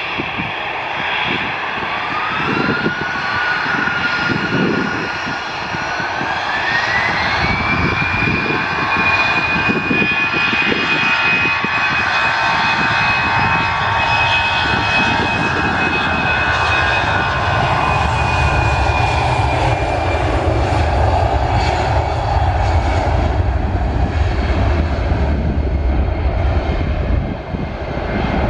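Airbus A319-111's CFM56 jet engines spooling up to takeoff power: a whine that climbs in two steps over the first eight seconds and then holds high, with a low rumble building as the aircraft accelerates down the runway on its takeoff roll.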